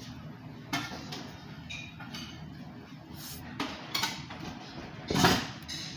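Tableware clinks and knocks during a meal: a few sharp clicks of ceramic dishes and a metal spoon, one with a short ringing tone about two seconds in, and a louder knock just after five seconds, over a steady background murmur.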